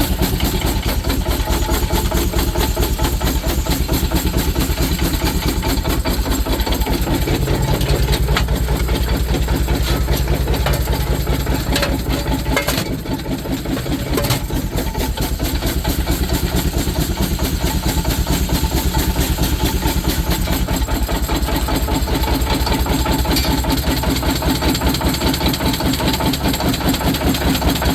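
Steam engine driving a sawmill, running steadily with a fast, even beat. It eases off briefly about halfway through, then picks up again.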